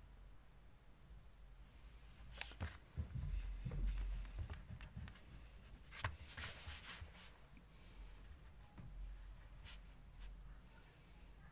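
Pencil scratching on paper in short strokes, with a few light taps and rustles; busiest and loudest from about two to seven seconds in.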